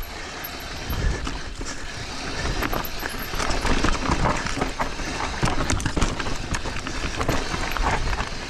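Mountain bike clattering down a rocky technical trail: tyres hammering over rocks and the bike rattling with irregular knocks and clicks.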